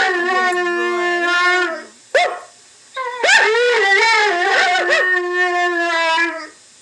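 Cardigan corgi mix howling: two long, wavering howls of about two and three seconds, with a short yip between them.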